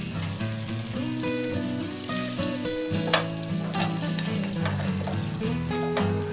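Food sizzling and crackling under acoustic guitar music, with a few sharp clicks.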